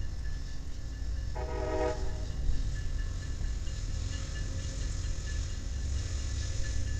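Locomotive horn sounding one short blast about a second and a half in, over a steady low rumble.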